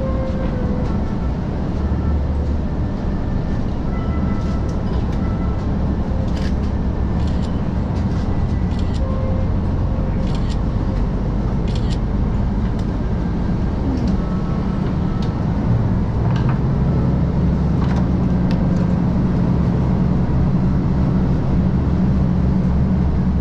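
KiHa 185 series diesel railcar running, heard from inside the car: a steady low engine drone, with scattered clicks from the wheels over the rail joints. The engine note strengthens about sixteen seconds in.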